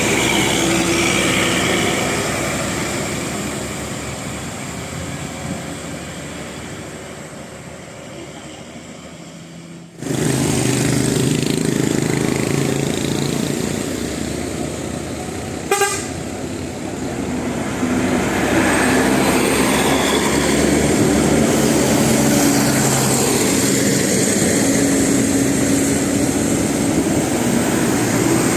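Bus engine running while a multi-tone 'telolet' horn plays, its notes changing pitch in steps. About ten seconds in, the sound jumps suddenly louder, and a short sharp click comes near the middle.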